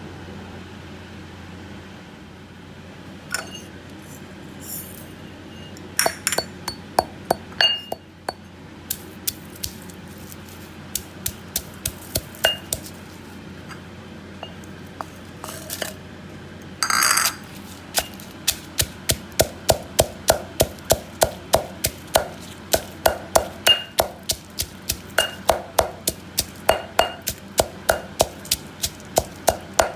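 Kitchen utensils and dishes clinking and knocking now and then, with a short scraping rush about halfway through. This is followed by a knife chopping steadily on a cutting board, about two to three strokes a second.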